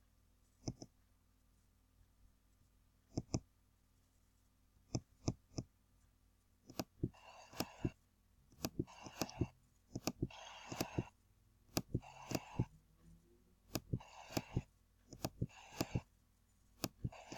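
Computer mouse clicking: single sharp clicks and quick pairs and triples. From about seven seconds in, short scratchy bursts come roughly every second and a half between the clicks.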